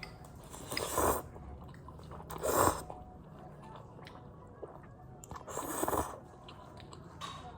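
A person eating instant ramen noodles: three short slurping and chewing sounds about a second or more apart.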